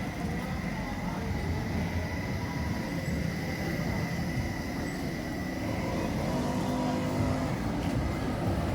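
A motor vehicle engine running in street traffic, its low rumble growing a little louder in the last few seconds as it draws nearer.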